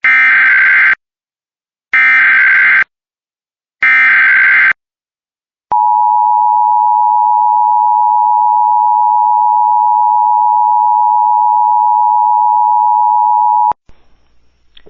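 Emergency Alert System header: three buzzy data bursts of about a second each, roughly two seconds apart, then the steady two-tone attention signal held for about eight seconds before cutting off sharply. This sequence marks the start of an emergency alert broadcast.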